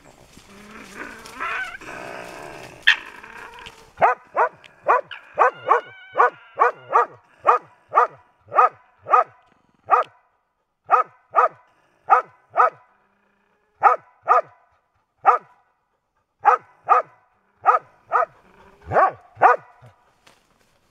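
Young raccoon dog giving short, sharp barking yelps over and over, about two a second in runs with short pauses, starting about four seconds in.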